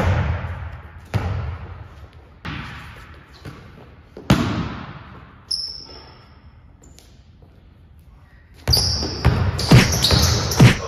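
Basketball dribbled on an indoor gym court, each bounce a sharp knock that echoes around the large hall, about one a second. Near the end comes a louder, quicker run of bounces and knocks.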